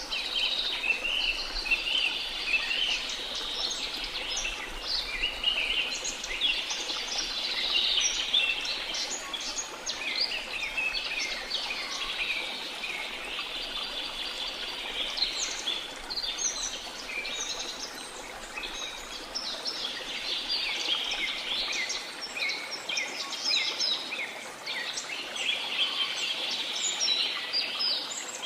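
Dense rainforest chorus of many birds chirping and calling at once, thick and unbroken, over a soft hiss of background noise.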